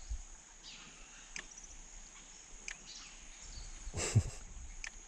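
Outdoor ambience of insects chirring steadily at a high pitch, with a few faint bird chirps. Scattered light clicks and one louder knock about four seconds in.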